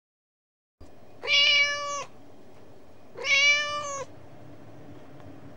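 A cat meowing twice, two drawn-out meows about two seconds apart, over a faint steady hiss.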